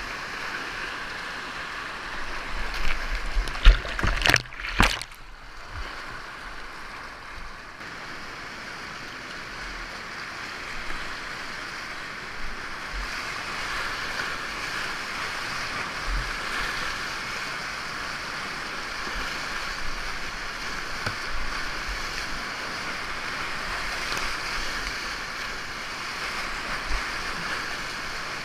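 Whitewater rapids rushing steadily around a kayak, heard up close from the paddler's camera. About four seconds in comes a short burst of loud knocks and splashes.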